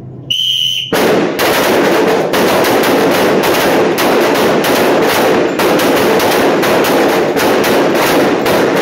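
A short whistle blast, then rapid, overlapping pistol shots from several shooters firing at once, echoing continuously in the enclosed indoor range.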